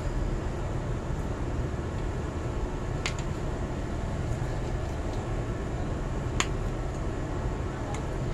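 Steady low rumble of running machinery, with a sharp click about three seconds in and another about six seconds in.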